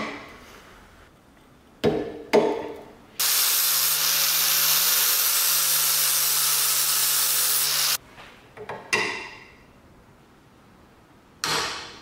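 An angle grinder with a cutting disc slices through the rusted iron strap of an antique iron's handle for about five seconds, a steady loud hiss over a low hum that stops abruptly. Sharp knocks that ring briefly come before it, twice around two seconds in, and again after it.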